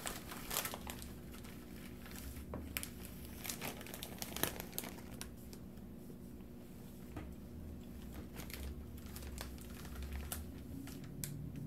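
Plastic candy bag crinkling as it is handled and candies are picked out of it, in irregular crackles with a lull a little past the middle.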